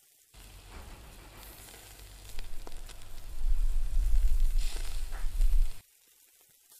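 Pork shoulder steaks and sausages sizzling on a charcoal kettle grill, with a few light pops and a heavy low rumble under the hiss that grows louder in the second half. The sound starts abruptly just after the beginning and cuts off abruptly nearly a second before the end.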